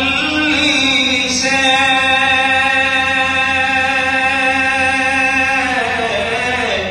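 A man's solo voice chanting a naat, an Urdu devotional poem in praise of the Prophet. He holds one long steady note from about a second and a half in, then his voice slides down in pitch near the end.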